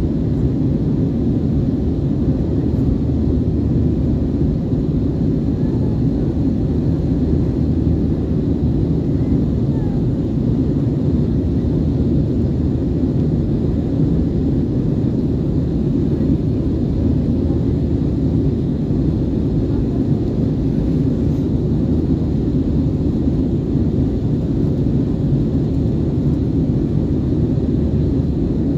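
Steady low drone of an Airbus A320 in flight, heard from a seat inside the passenger cabin: engine noise and air rushing past the fuselage, unchanging throughout.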